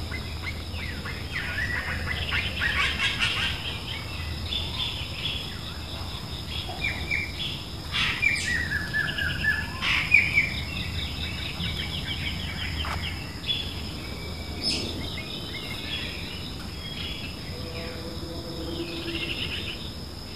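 Birds chirping and twittering in short, repeated calls, over a steady high-pitched whine and a low hum.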